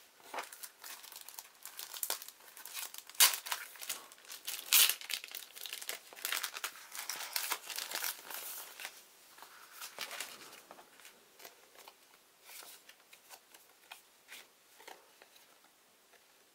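Decal sheets and their protective paper backing being handled and shuffled: crisp crinkling paper rustles, busiest over the first ten seconds with the loudest crackles around three and five seconds in, then thinning to occasional rustles.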